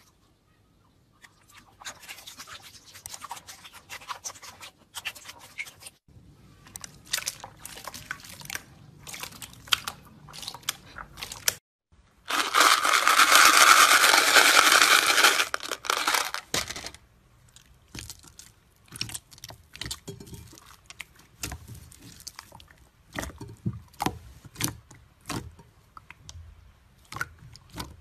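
Hands pressing and kneading slime, making runs of sticky clicks, crackles and pops. A loud steady rushing noise lasts about four seconds midway.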